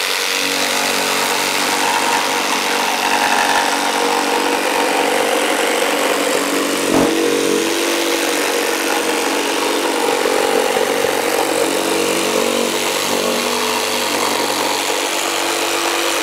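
Mafell P1CC 900 W jigsaw running steadily while it saws curves through a 28 mm laminated worktop: a constant motor whine with the blade's cutting noise, and a single sharp knock about seven seconds in. The motor does not labour through the cut.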